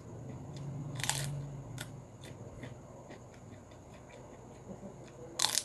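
Crunching of a crisp prawn cracker (kerupok) being bitten and chewed: two loud, crackly bites, about a second in and near the end, with lighter crunches of chewing in between.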